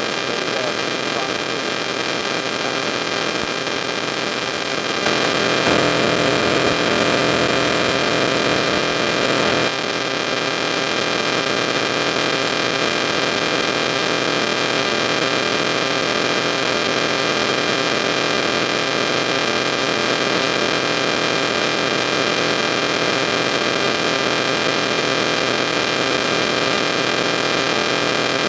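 Steady electrical hum and static hiss laced with thin high whining tones. It grows a little louder about five seconds in and drops back abruptly a few seconds later.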